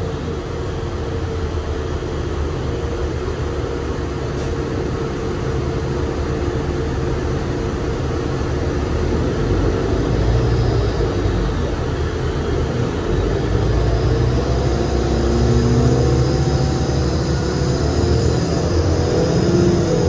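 Cabin sound of a 2007 New Flyer D35LFR transit bus under way, its Cummins ISL diesel engine running with a steady low drone that grows louder about halfway through.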